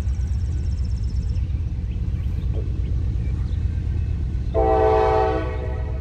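Diesel freight locomotive's air horn giving one short blast of about a second, a chord of several tones, about four and a half seconds in, over a steady low rumble.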